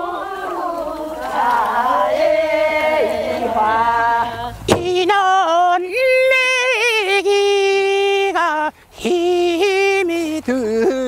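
Korean rice-paddy weeding song (non-maeneun sori) sung unaccompanied: several voices sing together at first, then from about five seconds in a single lead voice carries on alone with long, wavering held notes.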